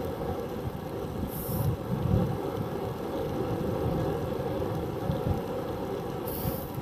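Wind buffeting the microphone of a small handlebar-mounted camera on a bicycle moving at speed, mixed with the rumble of tyres on asphalt: a steady, gusty low rumble.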